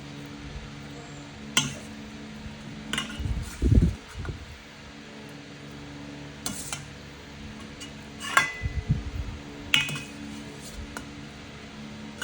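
Spoon and dishware clinking: about five separate sharp clinks a second or two apart, with two low muffled bursts of close-up eating noise in between, over a steady low hum.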